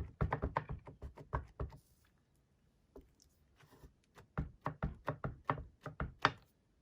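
A mounted rubber stamp being tapped quickly and repeatedly onto an ink pad to ink it: two runs of light, rapid taps with a pause of about two seconds between.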